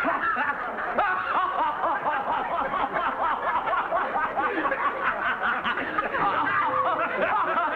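Laughter from many people at once, a dense mix of chuckles and snickers. Near the end a brass music cue begins to come in.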